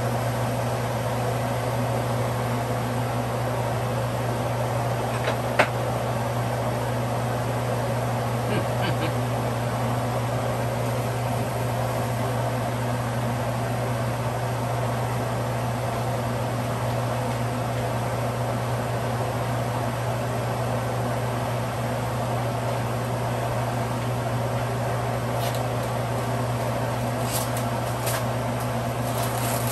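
A steady mechanical hum runs throughout. About five and a half seconds in, a glass lid clinks sharply onto a stainless steel pot, and a few light plastic rustles and clicks come near the end.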